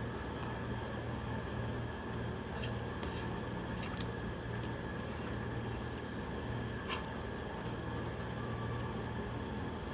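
Soft, wet squishing and a few faint light clicks of rice and fish curry being mixed and eaten by hand, over a steady background hum.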